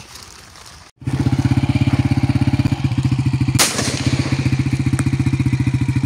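An engine chugging steadily and fast, starting abruptly about a second in, with one sharp gunshot from a 12-bore shotgun about two and a half seconds later.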